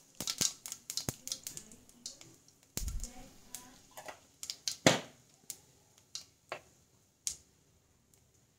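Cumin seeds crackling and popping in hot oil in a wok: sharp, irregular pops that thin out and die away in the last second or so. There is a dull knock about three seconds in.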